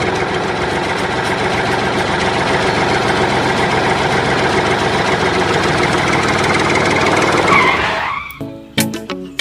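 A loud, steady machine noise, like a small motor running, that cuts off about eight seconds in.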